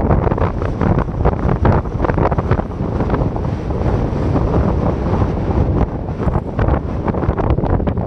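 Strong wind buffeting an LG V30 phone's microphone: a loud, low rumbling rush of gusts that eases a little in the middle and picks up again toward the end.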